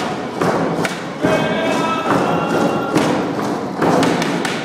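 Drum beats with a group of voices singing a Northwest Coast dance song. The singers hold long, steady notes from a little after one second in until near the end, and the drum strikes are the loudest sounds.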